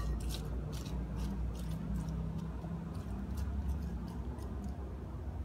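A spoon stirring sliced carrot, beans and cabbage with a little water in a dish: soft, irregular scraping and rustling strokes, several a second, over a low steady hum.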